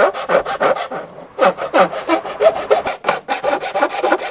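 A metal hand tool rasping back and forth through a black plastic trim panel in quick strokes, about five a second, with a short pause about a second in. The opening for the car's 220 V socket is being cut and enlarged.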